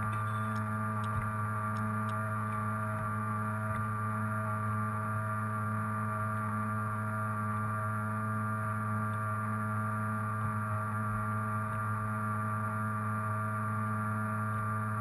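Modified RC tug boat's motor running steadily at a constant speed, a low hum with a whine above it, picked up close by a camera on the boat's deck.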